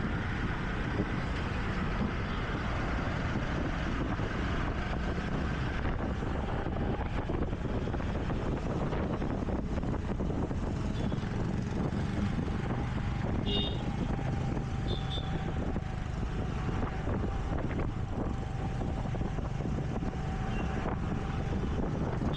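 Scooter ride through city traffic: steady wind rush, road noise and the scooter's engine running, with a traffic hum. There are a few short high chirps about halfway through.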